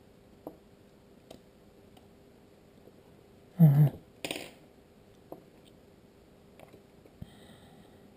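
Small clicks and taps of a disassembled IP camera's parts being handled as its internal cable connectors are plugged into the main board, with one louder, brief handling bump and rustle about three and a half seconds in.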